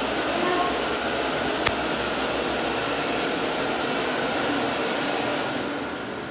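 Jet Air automatic hand dryer blowing air steadily, with one brief click about a second and a half in. Near the end the airflow fades as the dryer winds down.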